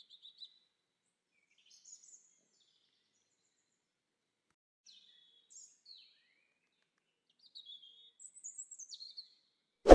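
Small birds chirping in short, scattered calls, faint against a quiet background. A single sharp clang right at the end.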